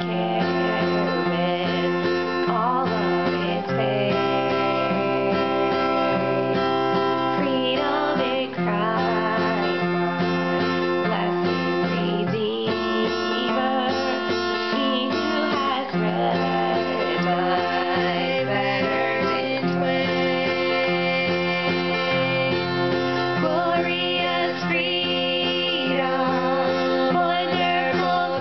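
Acoustic guitar strummed in steady chords, accompanying two women singing together.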